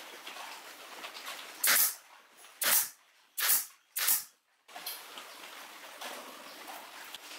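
Pneumatic brad nailer driving nails into plywood: four shots in under three seconds, each a short, sharp burst of air hiss.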